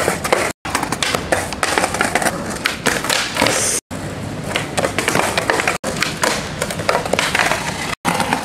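Skateboard on a concrete ledge: metal trucks grinding and wheels rolling, with the board clattering against the concrete as attempts are bailed. The sound is cut off for a moment four times.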